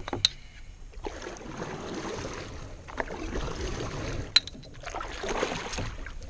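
Water sloshing and lapping around a fishing kayak's hull, swelling and fading, with a few sharp light knocks.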